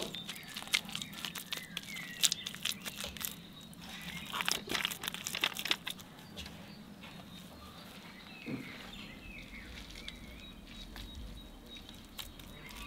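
Crisp crunching and crinkling for about the first six seconds as straw and wet clay are worked by hand, then quieter, with small birds chirping.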